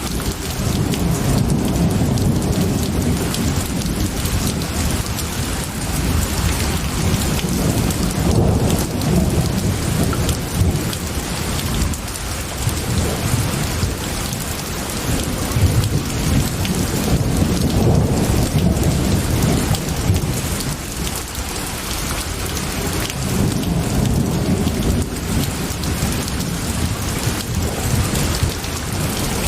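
Steady heavy rain with low rolling thunder rumbling beneath it, swelling and fading several times.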